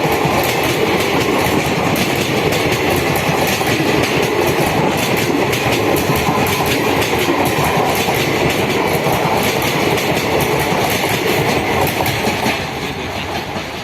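Passenger train of ICF coaches rolling past at speed, the wheels clattering over the rail joints in a fast, steady clickety-clack. It grows quieter in the last second or so.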